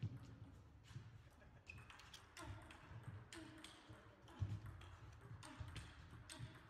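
Table tennis rally: the ball clicking off the rackets and the table in quick, irregular succession, echoing in a large sports hall.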